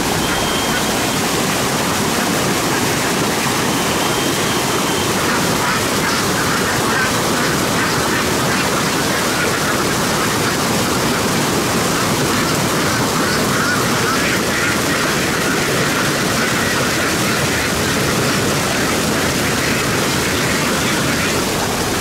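A large flock of domestic laying ducks quacking all at once, a steady, dense din of overlapping calls.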